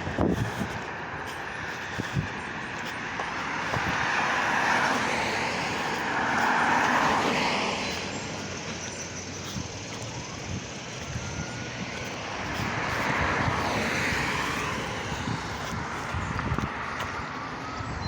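Road traffic: passing cars whoosh by in swells that rise and fade, with the loudest ones a few seconds in and again later on.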